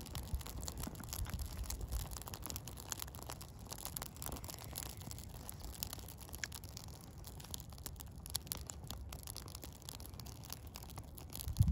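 Small birch-bark and wood fire crackling, with many small irregular pops over a low rumble of wind.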